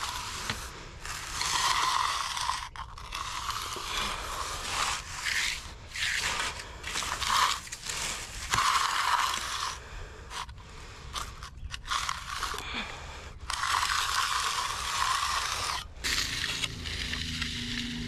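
Steel finishing trowel and edger scraping across the surface of a freshly poured concrete slab. The sound is a run of sweeping strokes, each a rasping hiss, with short pauses between them. This is the troweling stage of hand-finishing the slab.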